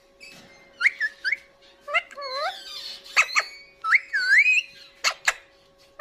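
Alexandrine parakeet whistling and calling: a string of short whistles that glide up and down, mixed with sharp brief chirps, about one a second.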